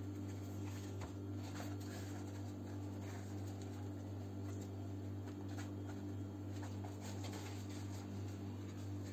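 Faint rustling and crinkling of thin, dry yufka dough sheets being torn by hand and laid into a tray, over a steady low hum.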